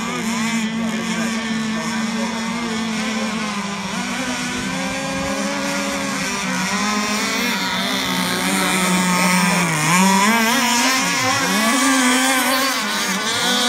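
Small two-stroke gas engines of several RC catamaran racing boats running at high revs. The pitch wavers throughout and dips sharply about three times near the end.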